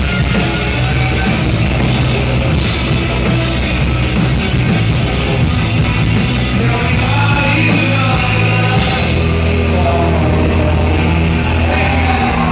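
Live rock band playing loud: guitars, bass and drums, picked up by a phone's microphone in the crowd.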